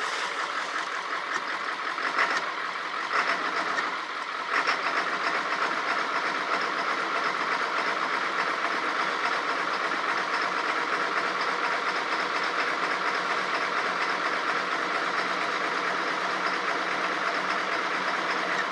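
Early 1999 Ford Super Duty's 7.3 Power Stroke turbo-diesel V8 running steadily, with a few sharp clicks in the first few seconds. It is running rough: the owner feels not all the injectors are firing and puts it down to air in the fuel lines or old summer diesel in the cold.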